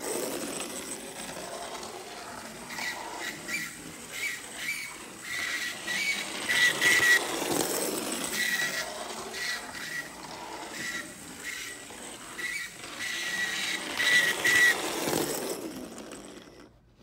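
Vintage Playart model locomotive's exposed motor and gearing running along the track, a whirring rattle with a repeated high-pitched tone coming and going. This is the odd noise it makes at higher speed, and a sign that something in the drive is not right.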